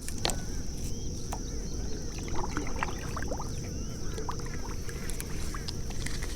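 Outdoor pond ambience: many short bird chirps over a steady high-pitched insect drone and a low rumble, with a few light clicks.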